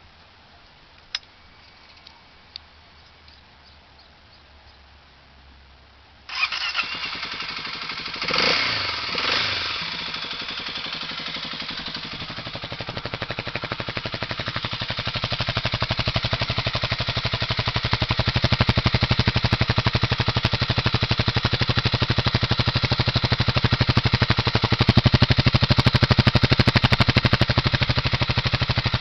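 Kawasaki KLX250S single-cylinder four-stroke engine starting about six seconds in after a few faint clicks. It is blipped twice, then settles into a steady idle that grows louder over the following seconds. The engine sounds normal to the owner after 3000 km.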